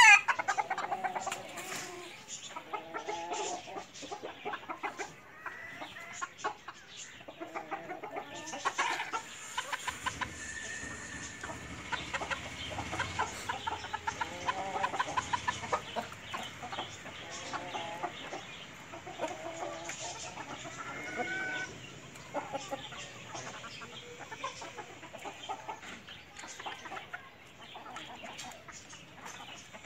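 Chickens clucking and calling, many short calls one after another, with one loud call right at the start.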